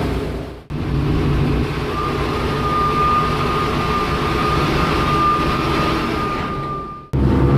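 The four radial engines of a B-17 Flying Fortress droning steadily, heard from inside the fuselage. A steady high whine rides over the drone through the middle. The sound drops away briefly twice, just under a second in and near the end.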